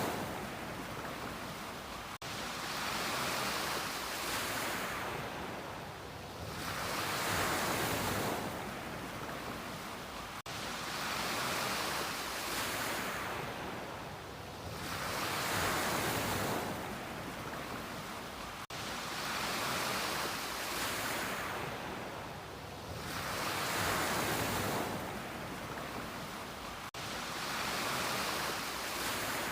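Ocean waves washing onto a beach, a steady hiss of surf that swells and fades about every four seconds. A tiny break in the sound comes every eight seconds or so.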